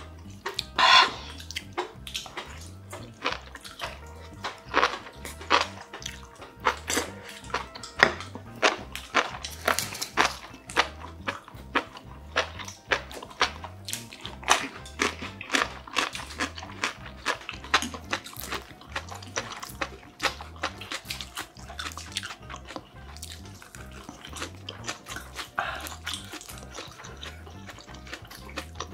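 Close-miked eating sounds: many small wet smacks, clicks and slurps of chewing and slurping spicy buldak noodles, over soft background music with a steady beat.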